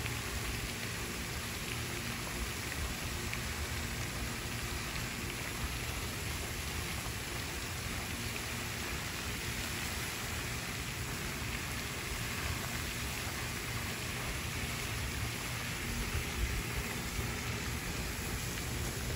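Steady splashing hiss of a pond fountain's spray falling back onto the water surface.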